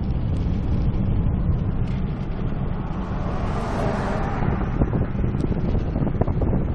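Car interior noise while driving: a steady low rumble of engine and tyres on the road, with wind buffeting the microphone. A rushing hiss swells briefly about three to four seconds in.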